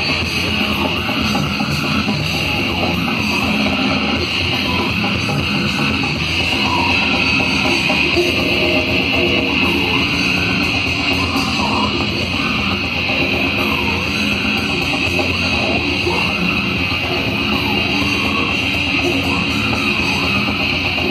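Heavy metal band playing live: distorted electric guitars over a drum kit in a dense, loud, unbroken wall of sound, heard from within the audience.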